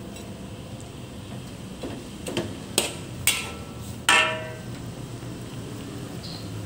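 A metal utensil knocking and clinking against a cooking pot, about five strikes starting some two seconds in, the last one ringing briefly, over a low steady hum.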